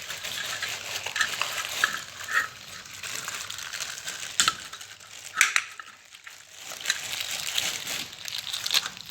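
Packaging rustling and crinkling in irregular spurts, with a few sharper crackles, as a chakli maker is unpacked from its parcel.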